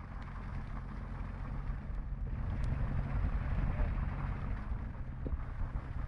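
Maserati Quattroporte's V8 engine running steadily at low revs as the car rolls slowly past, with no revving.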